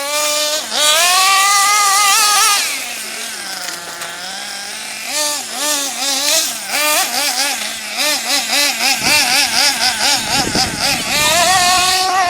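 Small two-stroke nitro engine of a 1/8-scale RC buggy running at high revs, rising sharply in pitch near the start, easing off, then revving up and down in quick throttle blips.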